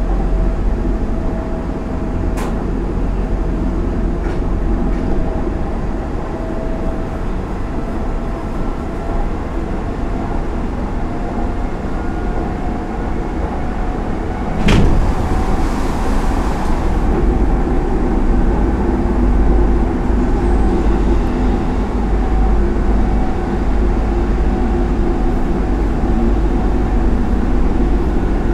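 Hanshin Railway express train at speed, heard from inside the car: steady rumble of wheels on rail with a faint whine that rises slightly in pitch. A sharp knock comes about halfway through.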